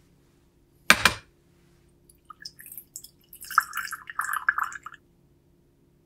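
A single sharp knock about a second in. Then water is poured into a small glass bowl, trickling and splashing for about three seconds before stopping.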